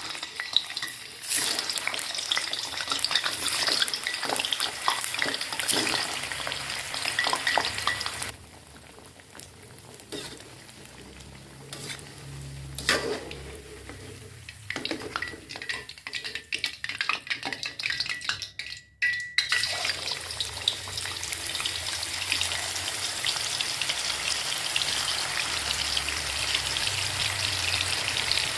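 Food frying in hot oil in a pan, sizzling, with the clatter of a utensil stirring. The sizzle drops low about a third of the way in and then comes back loud and steady about two-thirds of the way through.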